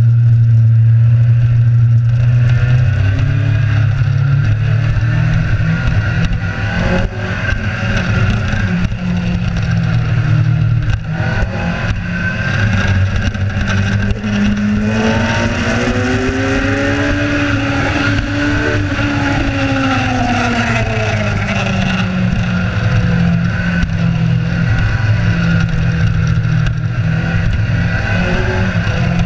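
Kawasaki Z1000 motorcycle engine running at speed under a steady rush of wind noise. In the middle an engine note climbs in pitch and falls back again over several seconds.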